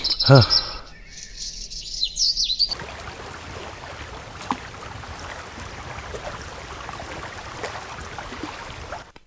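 Birds chirping for a second or two, then a steady rushing hiss of wind and choppy lake water that cuts off suddenly near the end.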